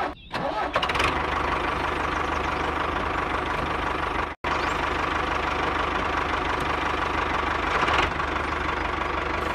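Tractor engine sound running steadily after starting up about a second in, with a brief sudden dropout a little before halfway.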